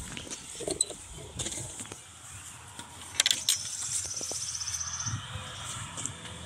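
Clicks and knocks from handling the wire-mesh garden gate while stepping through it, with a sharp pair of clicks about three seconds in. Right after, a rapid high trill lasts about a second and a half.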